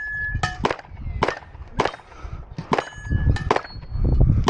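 9mm pistol shots fired at an uneven pace, about six in all, with steel targets ringing with a clear held tone after several of the hits.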